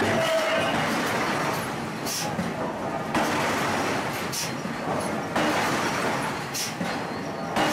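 Forge-shop machinery running with a steady mechanical din. A short hiss comes through about every two seconds.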